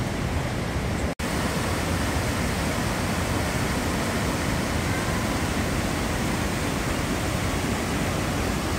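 Steady rushing of white water and waterfalls cascading down a narrow rocky gorge, with a momentary drop-out about a second in.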